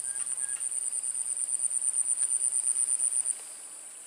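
High-pitched insect trill, a fast, even pulsing that stops suddenly about three-quarters of the way through.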